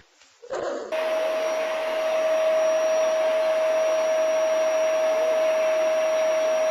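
A small electric appliance motor starting up about half a second in and then running steadily, with a constant whine over an even rushing noise.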